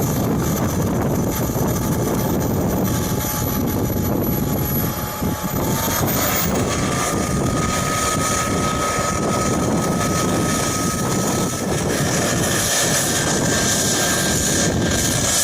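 Jet turbine engine of a home-built hydro boat running, a steady rushing roar with a high whine that steps up in pitch twice as the turbine is spooled up.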